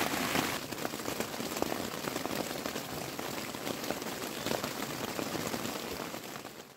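Steady rain falling, a dense, even spatter of many small drop ticks, fading away near the end.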